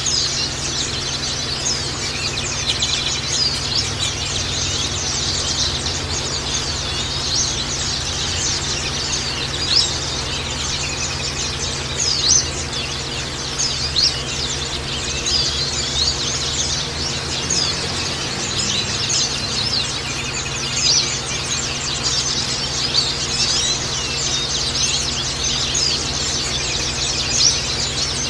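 Many white-eyes (Zosterops) chirping and singing together: a dense, unbroken chorus of quick high notes over a steady low hum.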